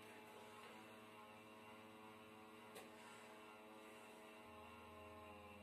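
Faint steady hum of a second-hand computer power supply under load, sending 12 V through the frame wire to heat it into the wax foundation; the owner puts the noise down to the unit being used. A faint click about three seconds in, and a deeper hum joins near the end.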